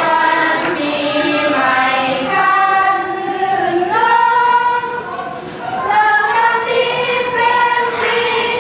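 A group of women singing together unaccompanied, holding long notes and sliding between pitches.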